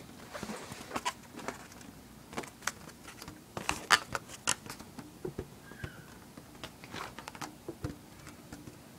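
Handling noise: irregular light clicks, taps and rustles, with the sharpest cluster about four seconds in.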